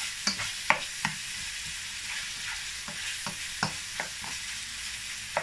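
Minced beef and onion sizzling as it browns in a non-stick frying pan, stirred with a plastic spatula. Irregular light clicks and scrapes of the spatula on the pan sound over the steady hiss of the frying, the sharpest click coming under a second in.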